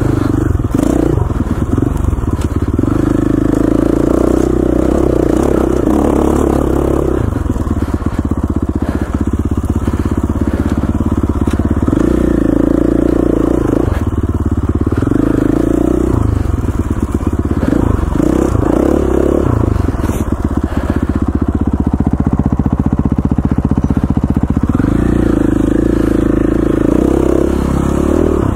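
Single-cylinder dirt bike engine running under riding load, the throttle opened and eased off every few seconds.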